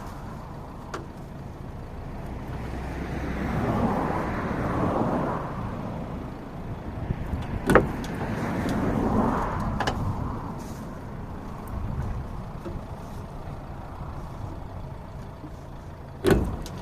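Ford Transit Connect van's engine running under heavy load, rising twice in noisy swells as it strains to pull. There is a sharp bang about eight seconds in and a louder knock near the end.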